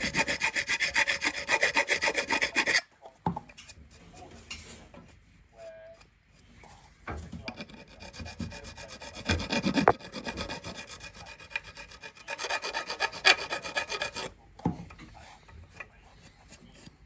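A hand tool rasping in quick, even strokes, in three bursts of two to three seconds each, with faint knocks and handling sounds between.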